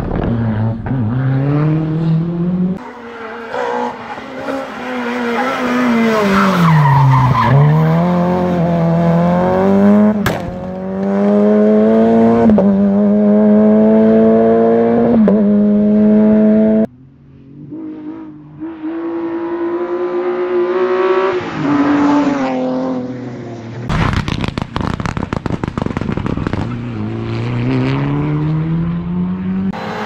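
Rally cars at full throttle on a tarmac stage, engines revving up through the gears, the pitch climbing and dropping sharply at each upshift. One car's revs fall away as it brakes for a corner, then climb again as it accelerates out. The sound breaks off abruptly twice as it switches from one car to the next.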